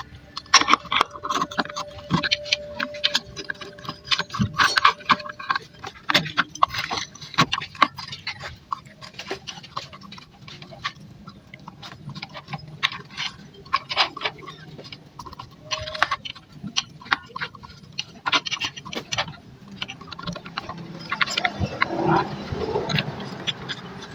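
Irregular clicks, taps and clinks of hand tools and small metal engine parts being handled during motorcycle engine work, with a short ringing tone in the first few seconds.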